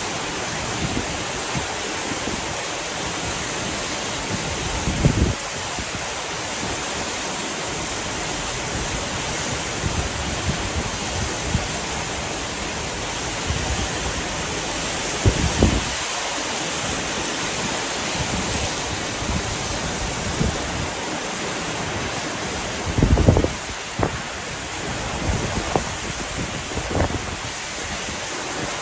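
Heavy tropical downpour giving a steady, even hiss of rain. A few short low gusts of wind buffet the microphone, the strongest near the end.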